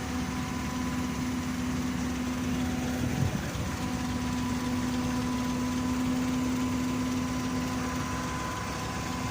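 Heavy diesel engine running steadily at a low idle, with a single brief knock about three seconds in.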